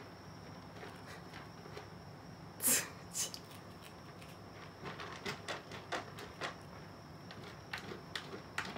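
A cat digging in a plastic litter box of pellet litter: short scratching and scraping strokes, one louder scrape about three seconds in, then a run of quick scratches in the second half.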